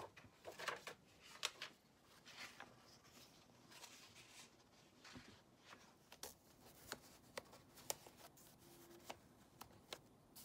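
Paper pages of a notebook being turned and handled: faint rustles and a scattered string of short, light clicks and taps.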